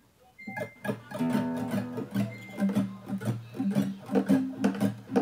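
Nylon-string acoustic guitar being strummed, chords struck in a steady rhythm starting about half a second in.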